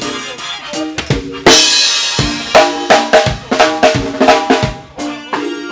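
Live band playing: drum kit with bass drum and snare hits, and a cymbal crash about a second and a half in, over sustained bass and pitched instrument notes.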